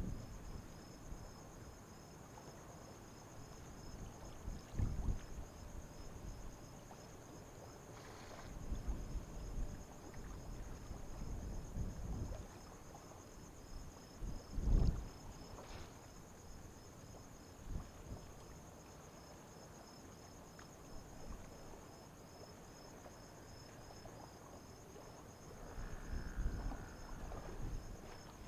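Insects chirping steadily in a high, pulsing trill, with several low rumbling swells of noise rising and fading over it, the loudest about halfway through.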